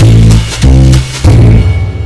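Outro music with heavy bass notes and drum hits; the last chord lands about a second in and begins to fade out.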